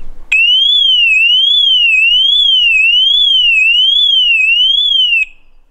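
Ring Alarm Outdoor Siren set off as a test: a loud, high electronic wail that sweeps steadily up and down in pitch, a little faster than once a second. It cuts off suddenly about five seconds in.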